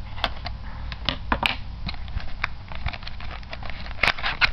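Cardboard box being handled as tape is picked and peeled off it: irregular crackles, rustles and small taps, with a louder cluster of clicks about four seconds in.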